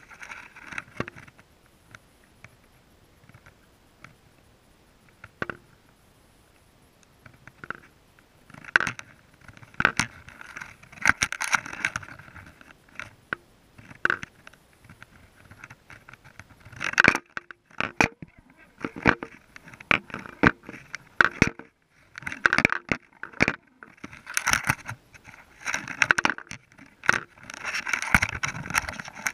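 Irregular clicking, knocking and scraping picked up by a GoPro in its waterproof housing underwater. The noises are sparse for the first several seconds and come thicker and louder from about eight seconds in.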